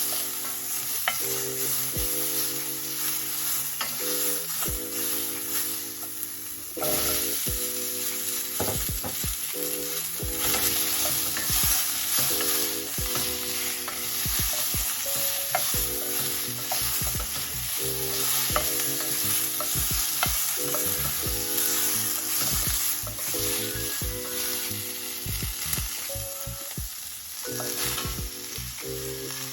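Food frying in a pan with a steady sizzle while it is stirred, the utensil clicking and scraping against the pan. The sizzle gets louder about seven seconds in.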